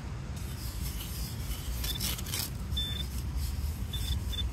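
Loose sand scraping and rustling as a handheld metal-detecting pinpointer is pushed and dragged through it, with four short, high beeps from the pinpointer, the last two close together near the end. The beeps mark metal it is picking up in the sand.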